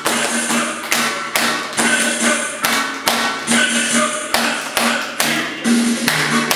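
Handclaps in a steady rhythm, about two a second, from a group of young children clapping along to upbeat dance music.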